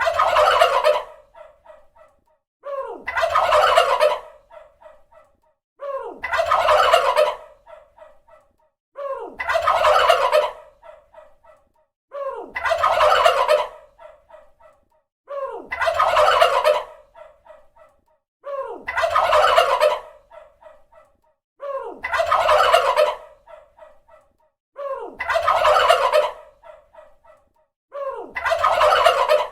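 Turkey gobbling: a loud, rapid rattling gobble about a second long, followed by a few fainter quick notes, repeated at even intervals about every three seconds, ten times in all.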